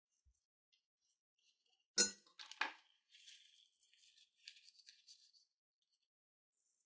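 Small plastic rhinestones clattering into a palm about two seconds in, then clinking lightly against each other as they settle and shift.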